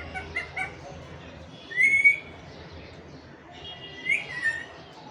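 Parakeet calling: a few short chirps near the start, then two louder whistled calls about two seconds apart, each rising quickly and then falling.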